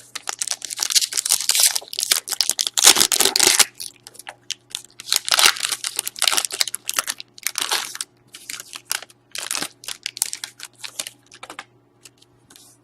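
Wrapping of a hockey trading-card pack being torn and crinkled as the pack is opened, in a run of crackling spells that thin out near the end.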